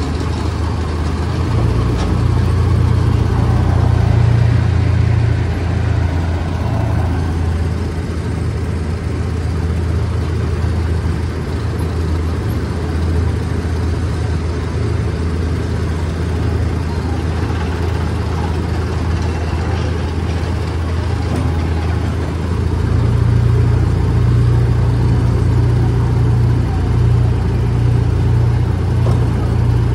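Miniature park train running steadily along its track, a low engine drone with rolling rumble that grows heavier about two-thirds of the way through.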